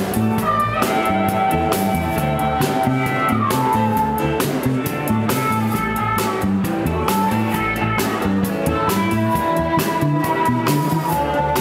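Live blues band playing: drum kit and guitar over a walking low bass line, with long held lead notes, one bending down in pitch a few seconds in.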